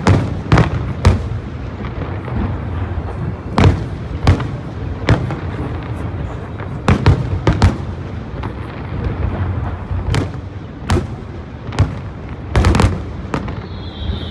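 Aerial fireworks bursting: a string of sharp bangs at irregular intervals, roughly one a second with some in quick pairs and triples, over a continuous low rumble.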